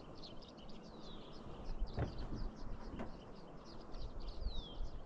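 Birds chirping: a steady run of short, high, downward-slurred notes, with two faint clicks about two and three seconds in.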